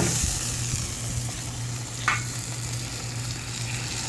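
Raw beef and lamb landing in hot oil and onions in a kazan with a sharp hit, then sizzling steadily as the meat starts to sear. A metal skimmer stirring it gives a short scrape against the pot about two seconds in.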